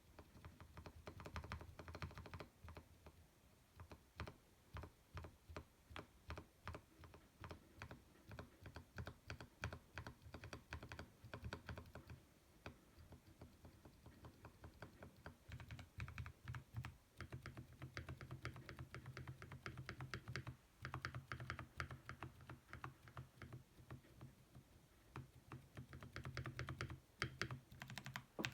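Steady typing on a K87 tenkeyless mechanical keyboard with lubed Kailh Speed Copper switches, a fast, continuous patter of key presses with a few brief pauses.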